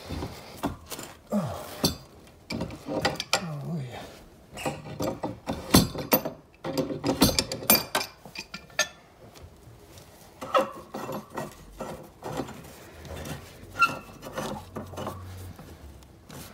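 Pipe wrenches clanking and scraping on an old steam convector valve and its iron pipe fittings: irregular metal knocks, clicks and rasps, with a few short squeaks.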